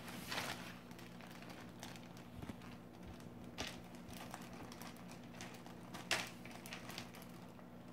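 Clear plastic zip-top bag crinkling and rustling in a child's hands, with crayons shifting inside. There are a few short louder rustles, the loudest about six seconds in.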